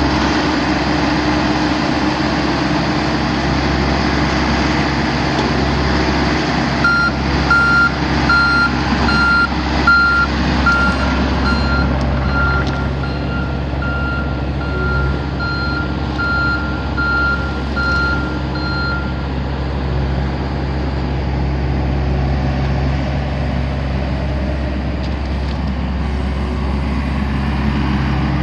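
Mini excavator's diesel engine running steadily. From about seven seconds in, the travel alarm beeps about twice a second for some twelve seconds, the sign that the machine is tracking.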